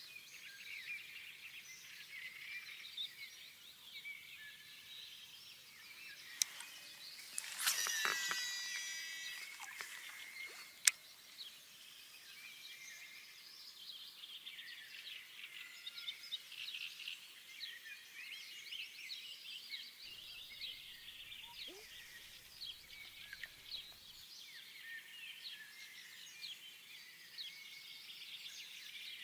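Small birds singing and chirping steadily in the background. About seven seconds in, a louder rushing sound rises and fades over a couple of seconds, followed by a single sharp click a few seconds later.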